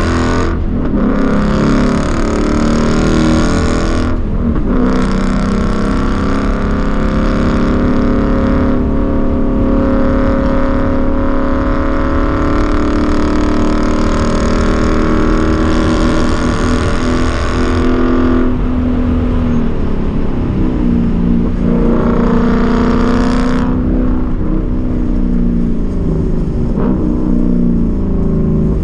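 Ford Mustang engine heard from inside the cabin under hard track driving. Its pitch climbs and falls with the throttle, with brief breaks about half a second in, around four seconds in, and twice in the second half, as it shifts gear or lifts off.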